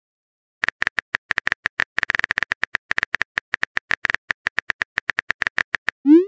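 Keyboard-typing sound effect of a texting app: a rapid, slightly uneven run of short tapping clicks as a message is typed letter by letter. A short rising swoop at the very end marks the message being sent.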